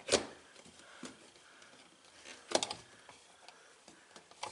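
Sharp knocks and taps as the truck's rear window glass is pushed and shifted into its rubber weatherstrip by hand: one near the start, a quick cluster about halfway, and another near the end.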